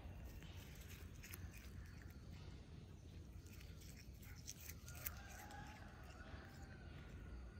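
Cat biting and chewing blades of fresh grass: faint, crisp snipping and crunching clicks, scattered and irregular, with one sharper snap about five seconds in.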